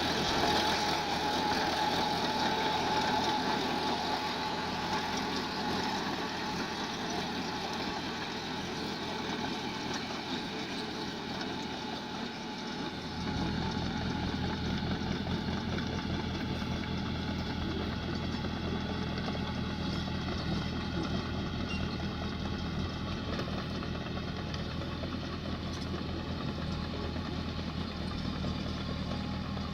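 Mini excavator's engine running steadily while it works; a little under halfway through, a deeper, stronger engine note comes in and holds.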